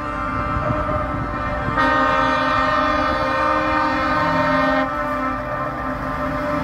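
A truck's multi-note air horn in train-horn style, sounding over the low rumble of its diesel engine. The horn is much louder for about three seconds in the middle.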